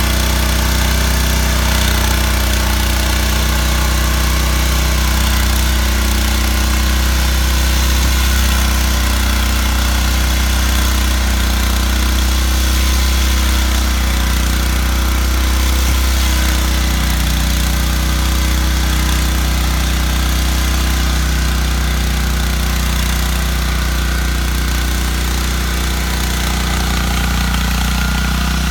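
Petrol engine of a rotary tiller running steadily at an even speed.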